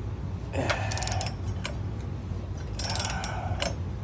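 A hand socket ratchet clicking in two short runs of quick clicks, its pawl ratcheting on the back-swings while unscrewing a water heater's anode rod.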